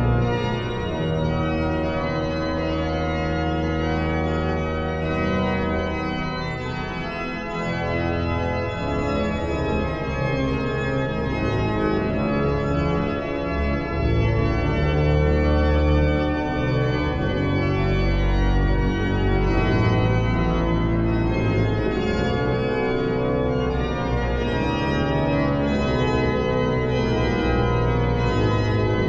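Gottfried Silbermann's Great Organ of 1714, a baroque pipe organ, playing sustained full chords over held low pedal notes, a little louder from about halfway through.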